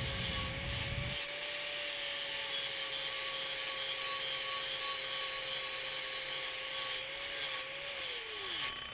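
Angle grinder skimming a weld cap flat on 6-inch schedule 80 steel pipe: a steady motor whine over the hiss of the wheel on steel. Near the end the whine falls sharply in pitch as the grinder is let off and spins down.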